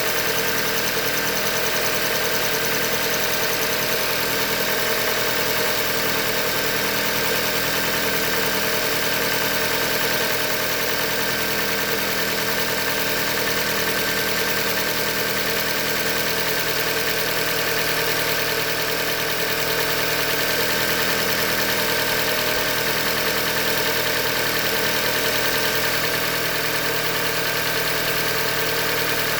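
2015 Hyundai Elantra Limited's engine idling steadily with an engine knock, the sign of a short block failure.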